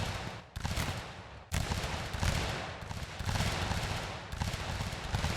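Long musket volley: many muskets firing in a ragged, rolling succession, the shots overlapping into a continuous crackle. The firing thins briefly about half a second in and again about a second later, then picks up again.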